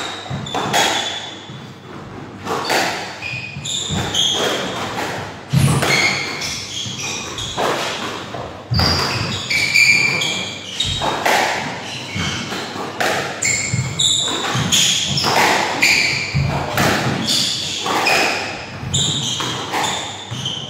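Squash rally: the ball cracks off racquets and the court walls in a run of sharp, irregular impacts, with short high squeaks from the players' shoes on the wooden court floor between them, echoing in the enclosed court.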